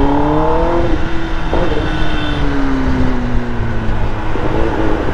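Kawasaki ZX-10R's inline-four engine revving up under way for about a second, then the revs drop off and fall away slowly over the next two seconds as the bike eases off, over steady wind and road noise.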